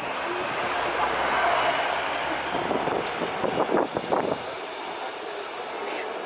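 Jet airliner engines running on the airfield: a steady rushing noise that swells and turns rougher for a moment around the middle, then eases.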